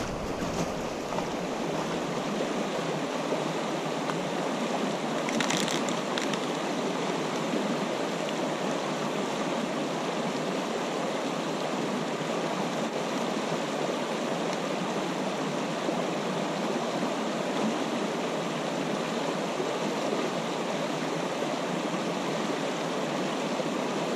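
River water flowing over rocks, a steady, even rush.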